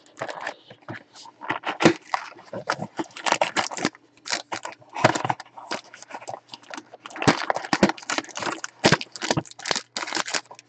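Hands opening a cardboard trading-card box and pulling the cards out: a dense run of irregular crackling, scraping and tapping of cardboard and wrapper.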